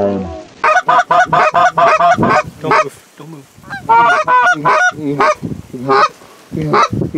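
Loud Canada goose honks and clucks in fast runs of several calls a second, breaking off briefly about three seconds in and picking up again.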